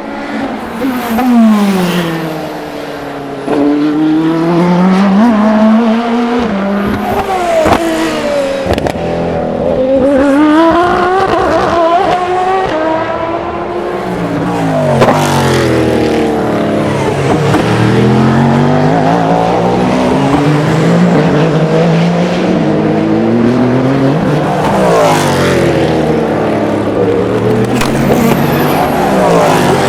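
Race cars lapping through a slow corner one after another, often two or more at once. Each engine drops in pitch as the car brakes and downshifts, then rises as it accelerates away, with a few sharp cracks along the way.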